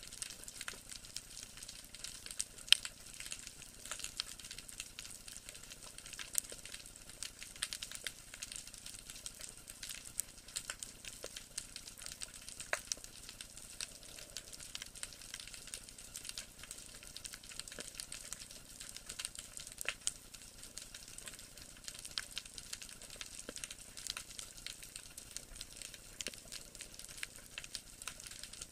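Underwater crackle of countless tiny snaps, like fat sizzling in a pan, with an occasional sharper snap: the typical chorus of snapping shrimp on a shallow rocky seabed.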